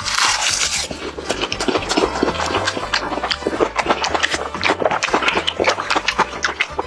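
Close-miked crunching and chewing of crispy fried chicken: a dense run of sharp, crackling bites, with a louder crunch right at the start.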